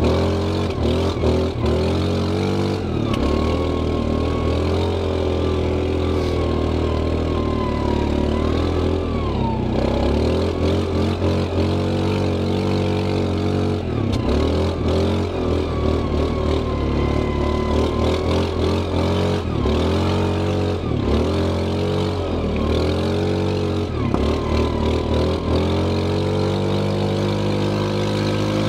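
Linhai 400S Dragonfly ATV engine revving up and down as it is ridden, with frequent knocks and jolts; for the last few seconds it runs at a steady speed.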